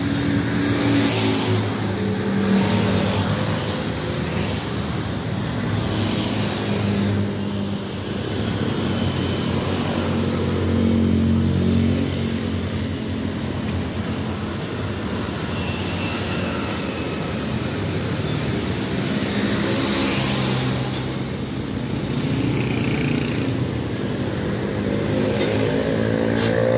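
Motorcycle engine running steadily, its pitch drifting up and down over several seconds.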